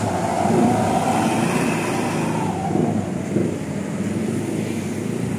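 Loud, steady vehicle rumble, with a faint held tone for about two seconds near the start.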